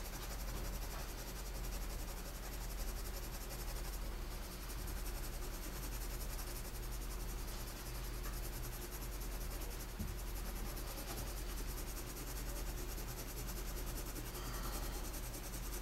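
2H graphite pencil hatching on drawing paper: soft scratching strokes over a steady low electrical hum.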